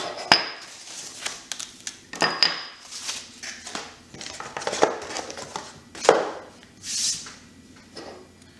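Anodized aluminium side panels of a sheet-film carrier being handled and set down on a wooden table: a string of separate clacks and knocks, metal on wood and metal against metal.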